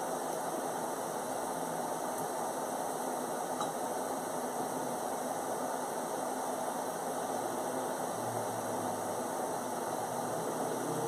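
Steady background hiss and hum with no speech or music, even throughout.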